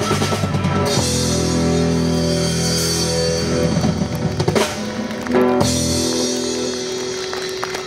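Live rock band with drum kit, electric guitar and bass playing an instrumental ending: steady chords over drums, two heavy drum-and-cymbal hits about four and a half and five and a half seconds in, then a final chord held and ringing out.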